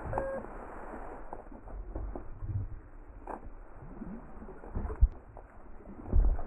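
Scattered knocks and thumps over a low rumble, with a short electronic beep right at the start.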